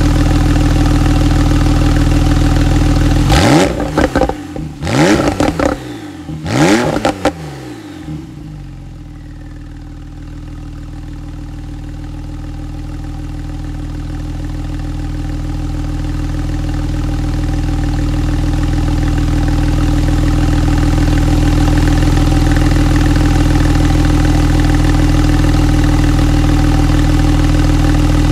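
Porsche 911 Carrera 4's flat-six engine with sports exhaust idling, blipped three times in quick succession a few seconds in, each rev rising sharply and dropping back. It then settles to a steady idle, quieter at first and slowly growing louder again.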